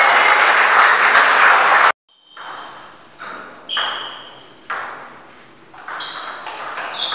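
Crowd applause in a sports hall that cuts off abruptly about two seconds in. Then a table tennis ball is bounced several times before the serve, each bounce a sharp ping that rings on in the hall, with the hits coming faster near the end.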